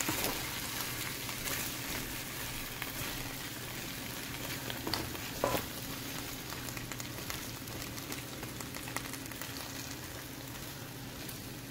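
Cut cluster beans (guar phali) frying in oil in a pan: a steady sizzle, with a few sharp clicks of a spatula against the pan about five seconds in. A steady low hum runs underneath.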